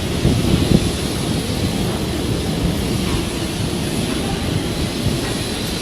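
Airplane engine noise: a steady drone with a faint high whine above it.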